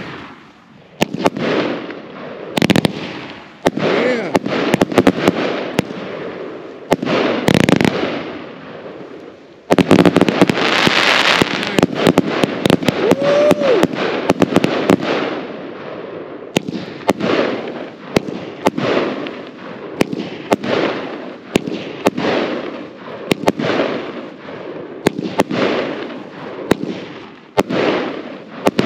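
Jekyll and Hyde 320-shot compound firework cake firing a rapid run of shots, tube after tube thumping off with crackling breaks overhead. About ten seconds in the shots come in a dense, near-continuous barrage for several seconds, then go back to quick separate shots.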